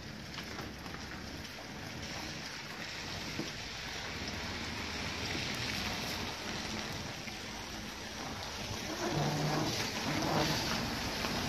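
Stiff, new fabric storage bag rustling and crinkling as a hard plastic sheet is worked into its top sleeve by hand. The rustling is steady and grows a little louder near the end.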